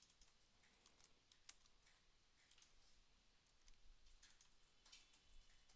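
Faint, scattered computer keyboard keystrokes and clicks at an irregular pace, typing in the Odoo URL, over near silence.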